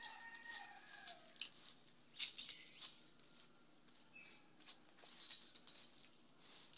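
Broom bristles swishing and scraping on a tiled floor in short, irregular strokes. A bird calls briefly near the start.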